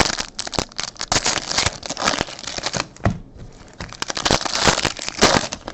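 Crinkling and crackling of trading-card wrappers being handled and torn open: a quick, irregular run of clicks and rustles.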